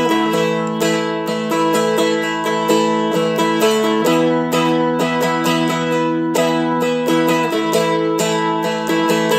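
Seagull Merlin, a small four-string fretted dulcimer, strummed steadily, playing chords over ringing drone strings. The chord changes about four seconds in and again near the end.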